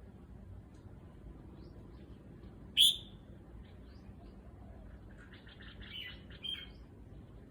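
Red-whiskered bulbul calling: one loud, sharp chirp about three seconds in, then a quieter run of quick notes near the end, with faint short chirps between.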